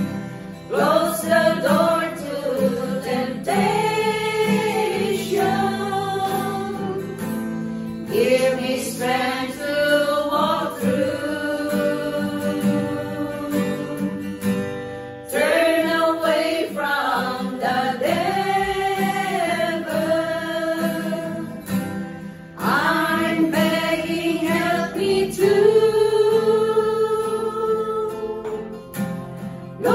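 A small group of women singing a Christian song together, accompanied by a strummed acoustic guitar, phrase after phrase with short breaks between lines.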